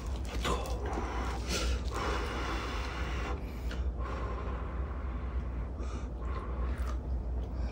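Close-miked eating: a person chewing a mouthful of rice and braised kimchi, with sharp breaths and huffs through mouth and nose and a few short clicks, over a low steady hum.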